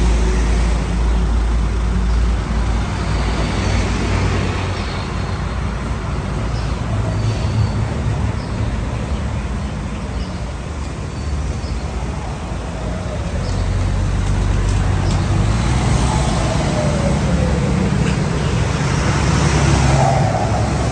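Motor vehicle running, a steady rumble of engine and road noise.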